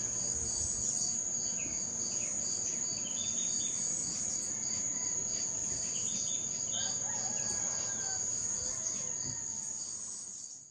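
Dusk chorus of crickets: a steady high trill with a pulsing chirp beneath it, repeating about two to three times a second, and scattered short chirps. It fades a little near the end and then cuts off.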